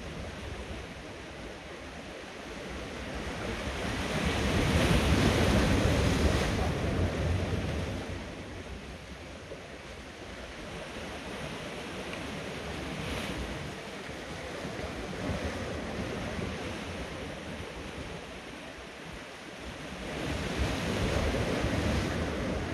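Sea swell washing and breaking against rocks at the water's edge, surging louder twice, about four seconds in and near the end, with wind buffeting the microphone.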